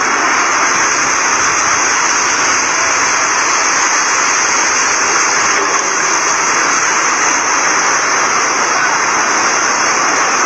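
Rain-swollen muddy stream rushing in a steady, unbroken flow.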